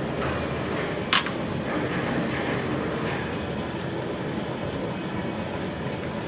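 Heavy workshop machinery running with a steady noise, and a single sharp metallic click about a second in.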